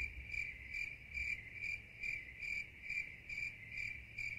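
Insect chirping: one high, even note that pulses steadily about two and a half times a second.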